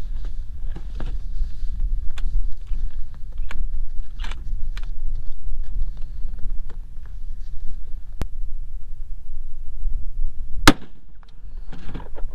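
A rifle shot from a Ruger American bolt-action .308 near the end, the loudest sound, with several fainter sharp cracks and clicks earlier. Wind rumbles on the microphone throughout.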